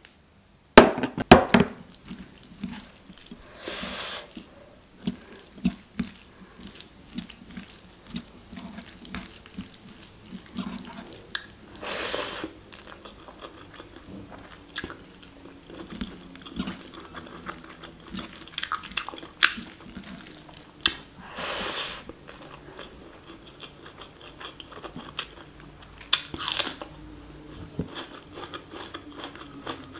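Close-miked chewing and biting of mutton curry, mushrooms and rice eaten by hand, with irregular wet mouth sounds throughout. A cluster of sharp clicks about a second in is the loudest moment.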